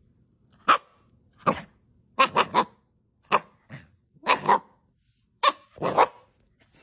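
Husky puppy giving a string of short, grumbling barks, about ten in six seconds, some coming in quick runs of two or three: the sound of a puppy protesting.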